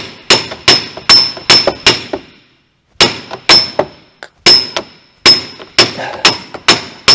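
Hammer blows on a steel bar driving a rusted-in front wheel bearing out of a MINI Cooper R50's hub: sharp metallic strikes with a high ring, about two to three a second, in runs with a pause of about a second a couple of seconds in. The corroded bearing is just starting to come loose.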